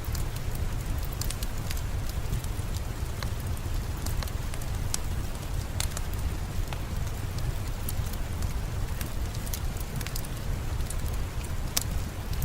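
Steady rainfall mixed with the sharp, irregular crackles and pops of a wood fire burning in a fireplace.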